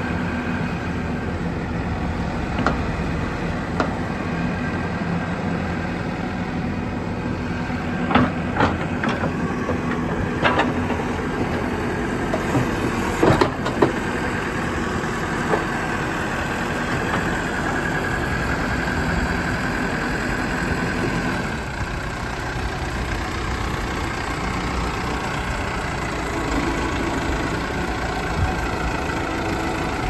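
JCB 214 Series 3 backhoe's diesel engine running steadily. Several sharp metallic clanks are heard, most of them between about 8 and 14 seconds in.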